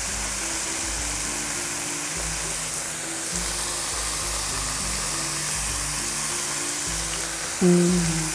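Chopped kimchi frying in a nonstick pan with a steady sizzle, under background music with a moving bass line.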